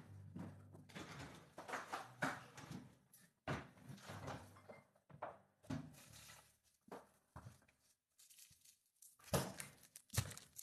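Aluminium foil being handled, with rustling, tearing and crinkling, among scattered kitchen clicks and knocks; a sharper knock comes about nine seconds in.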